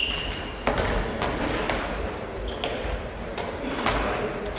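Handballs being shot and bouncing on a sports-hall floor: about six sharp thuds over four seconds, echoing in the hall.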